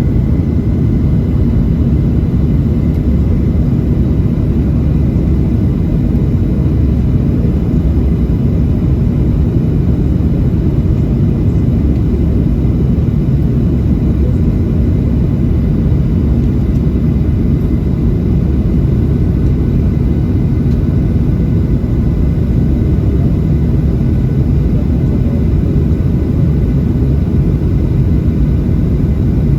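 Steady cabin noise inside a Boeing 737-700 in flight: a constant low rumble of airflow and CFM56-7B jet engines, with faint steady whine tones above it.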